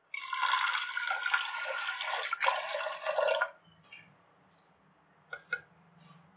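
Water poured into a pressure cooker over dry toor dal, splashing and filling for about three and a half seconds and stopping abruptly, followed by two quick light taps.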